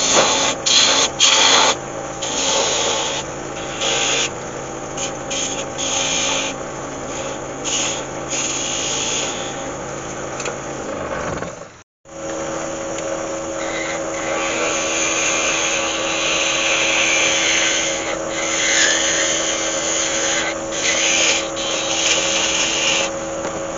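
Turning tool cutting a spinning Iroko spindle on a wood lathe: a scraping hiss in short strokes that stop and start. It breaks off suddenly about halfway, then the cutting goes on more steadily over a steady hum.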